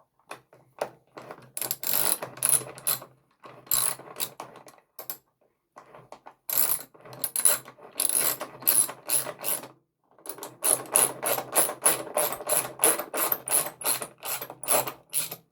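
Ratchet wrench clicking in quick runs of strokes with short pauses between them, as bolts are run in snug but not yet fully tightened.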